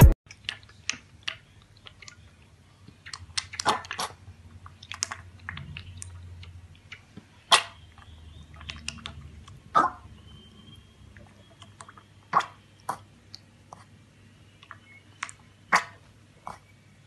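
Piglet drinking milk from a stainless steel bowl: irregular wet slurps and smacks of its snout and mouth in the milk, over a faint steady low hum.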